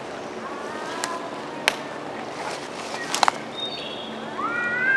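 Cats yowling at each other in a standoff: a faint drawn-out wavering yowl in the first second or so, a few sharp clicks, then a loud yowl that rises in pitch starts near the end.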